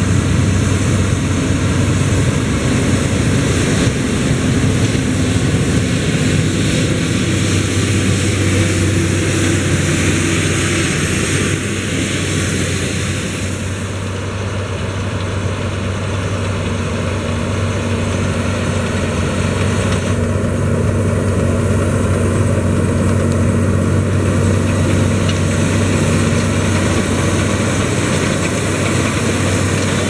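Fendt 939 tractor's six-cylinder diesel engine running steadily under load while pulling a seed drill through the soil.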